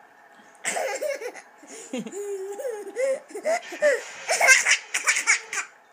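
A young child laughing and giggling, starting about half a second in and breaking into quick bursts of laughter, loudest near the end.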